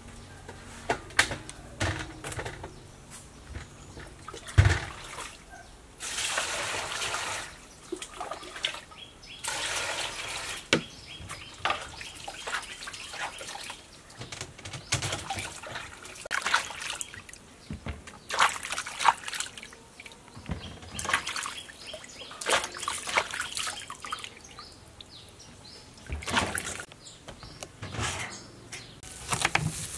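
Water splashing and sloshing in a metal basin as small watermelons are rubbed and washed by hand, in repeated bursts, with sharp knocks and clicks of the melons and hands against the basin between them.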